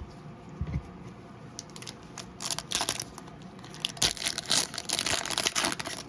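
Foil trading-card pack wrapper being torn open and crinkled in the hands. There are a few light clicks at first, then dense crackling from a little past two seconds on.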